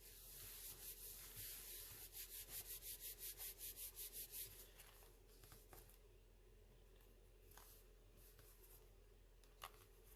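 Quick back-and-forth rubbing on paper or cardstock, about five strokes a second, for the first few seconds, then it stops; a single light click near the end.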